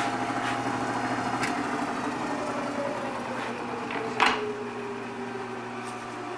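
Hobart M802 80-quart dough mixer running with a steady, quiet, smooth hum of motor and gears. After a click about one and a half seconds in, the hum slowly drops in pitch as the machine winds down. There is a sharper click about four seconds in.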